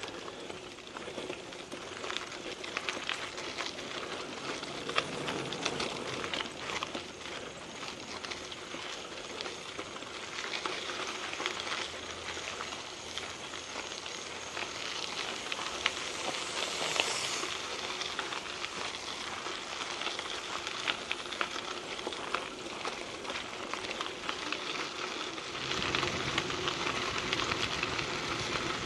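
Mountain bike tyres rolling and crunching over a gravel trail: a steady crackle of small stones under the tyres, getting louder near the end.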